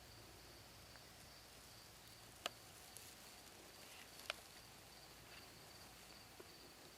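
Near silence with a faint, high, steady insect trill, broken by two sharp clicks a little under two seconds apart.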